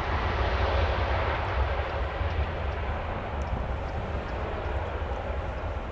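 Airbus A320 airliner's jet engines running as it taxis past: a steady rushing jet noise over a low rumble that slowly fades.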